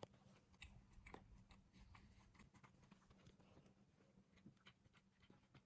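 Faint chewing of a soft-baked cinnamon cookie: quiet, scattered mouth clicks, over a faint steady hum.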